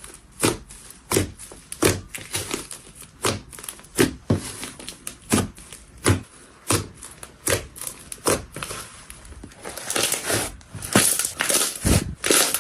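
Slime being squeezed and worked by hand, with repeated crackly squelches and pops about every two-thirds of a second, running closer together and longer near the end.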